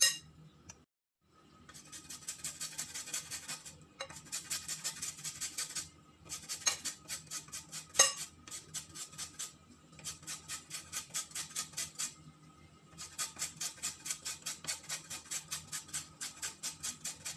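Fast, even scraping strokes of a flat hand grater, about five a second, in runs of two to three seconds with short pauses between them. A sharp clink of metal on the glass bowl comes about eight seconds in.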